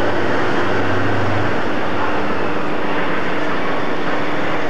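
British Rail Class 56 diesel-electric locomotive 56099 with its Ruston-Paxman V16 diesel idling: a steady drone. Its low hum drops away about a second and a half in, leaving a higher steady tone.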